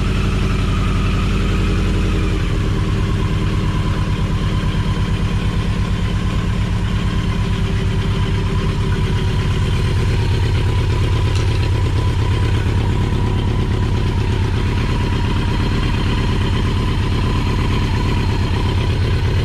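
1982 Yamaha XJ650's inline-four engine idling steadily with the choke off, its note shifting slightly about two seconds in; it is running smooth.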